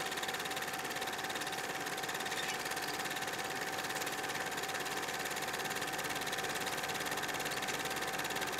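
Film projector running: a fast, even clatter over a steady tone.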